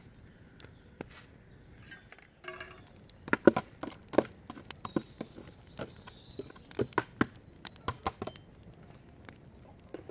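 Irregular knocks and clinks of a plastic bowl being emptied into a large aluminium cooking pot and of a metal spoon against the pot, loudest a little past three seconds in.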